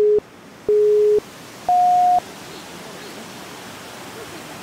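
Countdown beeps added in editing: the end of one low electronic beep, a second identical beep, then a higher final beep about two seconds in. After that comes a steady rush of flowing river water.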